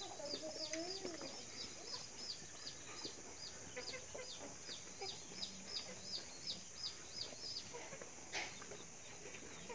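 Chickens: a short, lower, wavering call in the first second, then a long run of short, high, falling chirps, about four a second, that stops about three-quarters of the way through.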